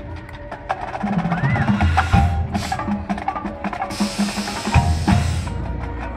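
High school marching band playing a percussion-led passage: many sharp, clicking strikes over a run of short, repeated low notes.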